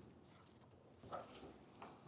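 Near silence with three faint, short clicks or taps.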